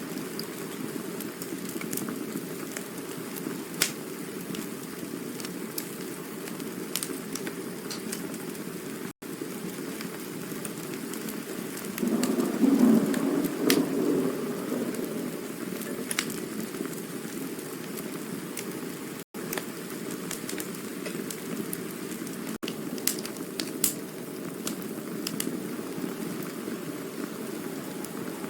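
Campfire burning: a steady low rush of flames with scattered sharp crackles and pops, swelling louder for a couple of seconds near the middle. The sound cuts out for an instant twice.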